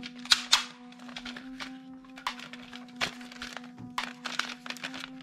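Plastic toy guns clicking and knocking against each other as they are handled, with a gold barrel piece being fitted onto a black toy submachine gun; a string of sharp clicks over steady background music.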